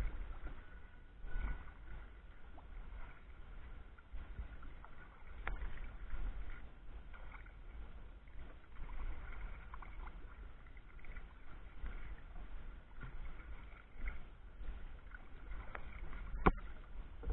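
Perception Essence 17 sea kayak gliding under sail, water rippling along its hull over a low rumble, with a few light knocks and one sharp knock near the end.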